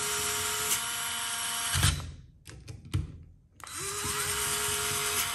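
Craftsman 4V cordless screwdrivers driving terminal-block screws tight, a steady electric motor whir. It stops about two seconds in, a few clicks and a knock follow, and the whir starts again near four seconds with a brief rise in pitch as the motor spins up.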